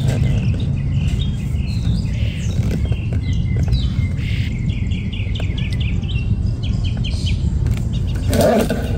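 Small birds chirping in quick runs of short, high notes over a steady low rumble.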